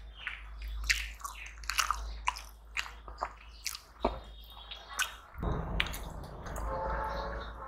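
Close-up eating sounds: wet squishing and smacking as rice and curry are mixed and eaten by hand from steel plates, with many sharp little clicks. For the last two seconds a steadier rustling noise joins in.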